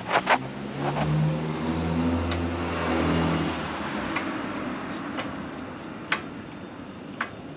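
A passing motor vehicle's engine hum swells and fades over a few seconds, dropping slightly in pitch as it goes by. A few sharp clicks at the start and near the end come from the metal parts and tools being handled.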